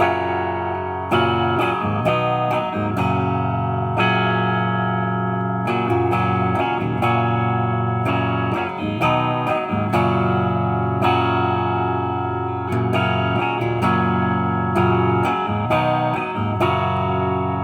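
Epiphone 1959 Les Paul Standard reissue electric guitar on its bridge pickup, volume and tone full up, played through an Orange amp's clean channel: chords strummed one after another and left to ring. The player finds the bridge pickup a tad microphonic.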